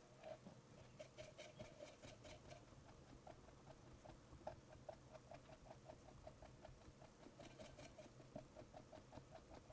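Faint, quick scratching of a stiff bristle brush worked in short strokes over a textured, rock-like sculpted surface, several strokes a second.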